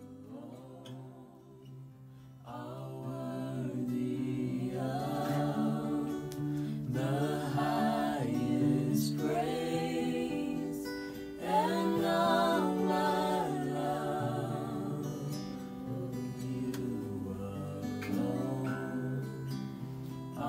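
Background music with a slow, sung vocal line held with vibrato over sustained low chords; it grows fuller and louder about two and a half seconds in.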